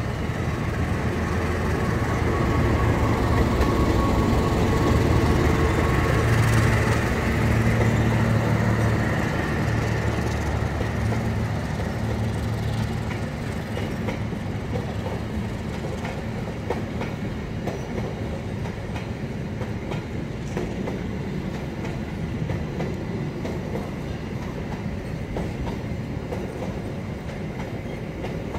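Long-distance passenger train passing: the diesel locomotive's engine drone swells over the first few seconds and fades by about halfway. The coaches then roll past with a steady rumble and the clickety-clack of wheels over rail joints.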